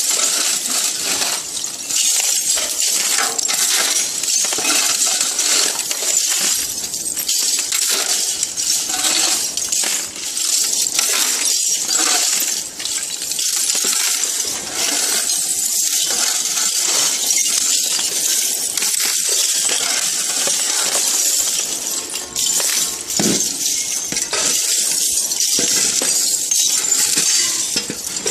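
Shredded aluminium scrap rattling and clinking as a shovel scoops through the heap and tips it into a metal tub. The clinking of many light metal pieces is dense and continuous.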